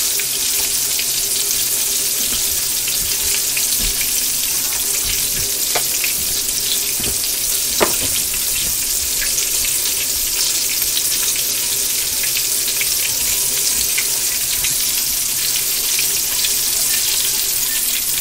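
Breaded squirrel pieces frying in hot oil in a pan: a steady sizzle with a few sharp pops, the loudest about eight seconds in.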